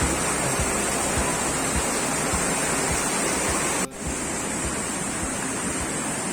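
Steady rush of water, with a brief drop-out about four seconds in, after which it carries on a little quieter.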